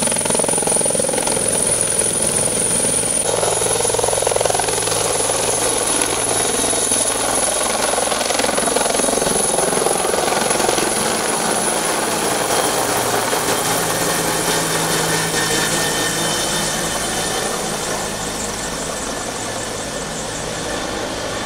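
Helicopter lifting off and climbing away: steady rotor and engine noise with a thin high whine on top, growing fainter over the last few seconds.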